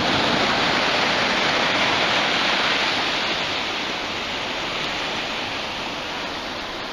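Small waves breaking and washing up a sandy shore: a steady rushing hiss of surf that eases off slightly about halfway through.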